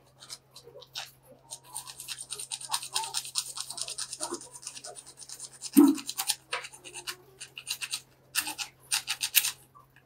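Hand-held saw blade cutting through a plastic water pipe in quick rasping strokes, with a short thump about six seconds in. The sawing pauses, then resumes briefly near the end.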